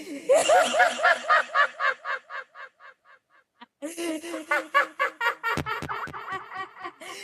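A person's laughter, recorded and run through audio effects: rapid pitched ha-ha pulses of about five or six a second. It comes in two runs with a pause of about a second between them. A few low knocks fall about two-thirds of the way through.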